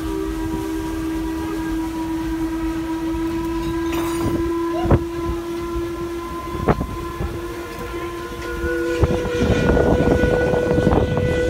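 Paddle steamer steam whistles blowing long held blasts. A lower whistle sounds steadily for about eight seconds, then a higher-pitched whistle takes over near the end with a rushing hiss. Two sharp knocks come in the middle.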